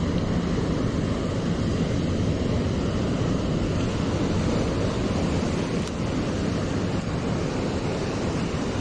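Steady wind rumbling on the microphone over the wash of small waves breaking on the shore.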